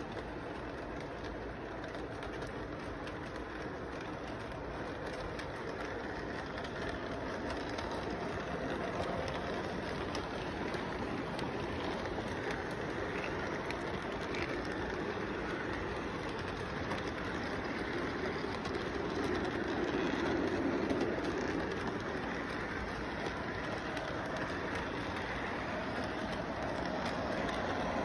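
Model electric train rolling past on its track, the steady rumble of its intermodal cars' wheels growing slowly louder and strongest a little after two-thirds of the way through.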